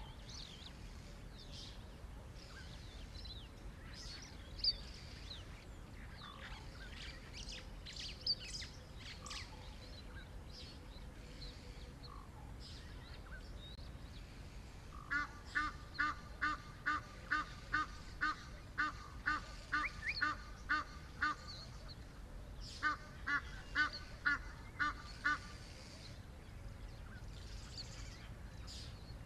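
Wild birds calling: scattered high chirps and short songs, then a loud, honking call repeated about two to three times a second in two bouts, one of about six seconds starting halfway through and a shorter one a couple of seconds later.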